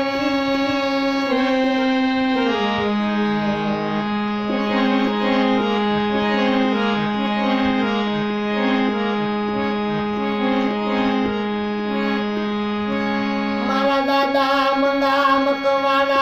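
Harmonium playing an instrumental passage: sustained reedy notes with a melody over a held drone, which drops lower about two and a half seconds in and returns near the end. A man's singing voice joins the harmonium in the last couple of seconds.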